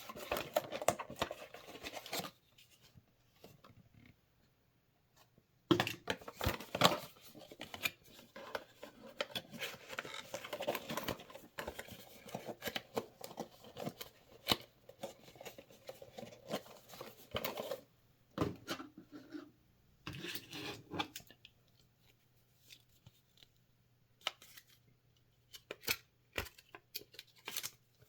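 Packaging being opened and handled by hand: irregular rustling, scraping and clicking of cardboard and plastic. The sounds come in a short spell at the start, a long busy stretch from about six seconds in, then scattered handling noises near the end.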